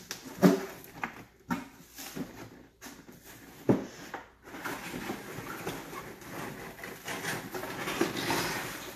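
Large cardboard shipping box being opened: a string of sharp knocks and scrapes as the flaps are pulled open, then from about four and a half seconds in, continuous rustling and crinkling of the packing paper as it is pulled out.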